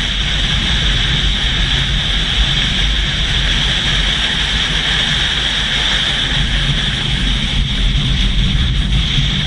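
Steady rush of wind noise over a low rumble, as from a moving vehicle, with no break or change.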